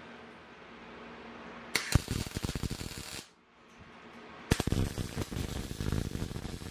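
MIG welding arc from a Mastroweld MIG-250MI welder, crackling and spitting in two short tack welds, the first about a second and a half long and the second about two seconds long.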